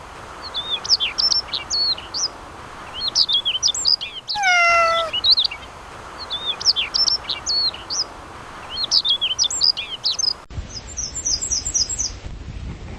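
A songbird singing in short phrases of quick, high chirps every couple of seconds over a steady hiss, with one louder, drawn-out call with a rich tone about four seconds in. Near the end the sound cuts abruptly to a duller recording with a low rumble and a quick run of high chirps.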